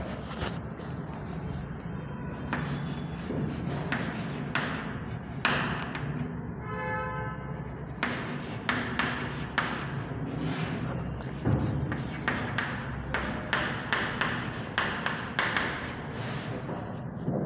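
Chalk writing on a chalkboard: a run of short scratching strokes and taps of chalk on the board, over a steady low hum. About seven seconds in, a brief pitched tone sounds for about a second.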